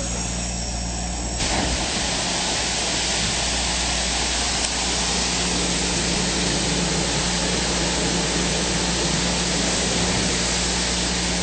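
Self-serve car wash high-pressure wand spraying water steadily, a hissing rush that turns brighter about a second and a half in, over a steady low hum.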